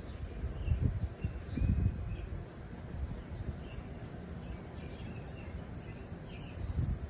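Small birds chirping on and off, over a low rumble that swells about one and two seconds in and again near the end.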